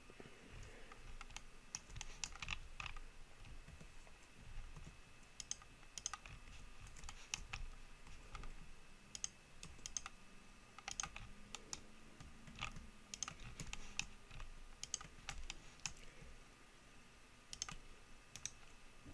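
Computer keyboard and mouse clicks, faint and irregular, a few taps at a time with short gaps between.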